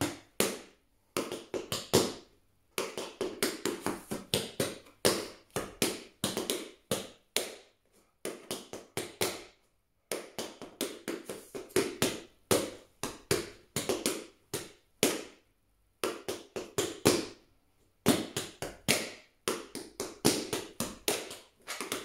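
Tap shoes' metal plates striking a hard floor as a tap dancer runs through a time-step combination at a fast tempo with no music. The taps come in quick runs broken by a few brief pauses.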